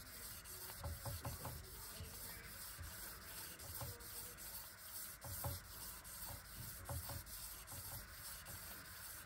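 1500-grit wet-and-dry sandpaper on an LS1 crankshaft rod journal, spun around the journal by a rag loop pulled back and forth: faint rubbing with light, irregular knocks, a hand-polishing stage of the journal.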